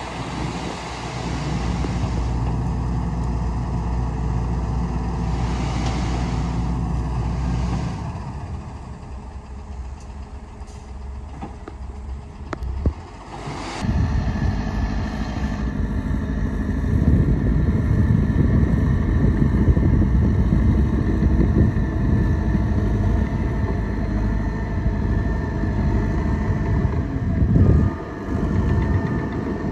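Heavy diesel engines of construction machinery running steadily. The sound drops for several seconds in the middle, then comes back louder and denser from about halfway.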